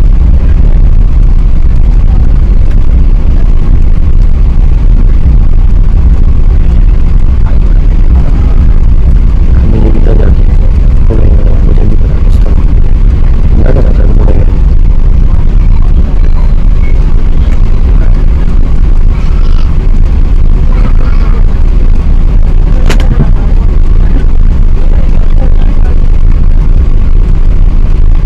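Airbus A380 engines and rushing air heard inside the passenger cabin as a loud, steady low rumble.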